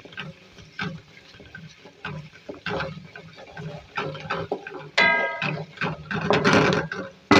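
Wooden spatula scraping and knocking irregularly against a karahi as sliced onions are stirred in hot oil to soften them, with a brief high pitched sound about five seconds in.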